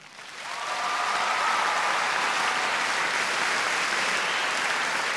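A large concert audience applauding, swelling up within the first second and then holding steady.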